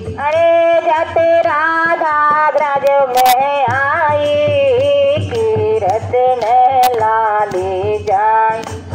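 Devotional song: a solo voice singing a gliding, ornamented melody over instrumental accompaniment with a low, steady beat.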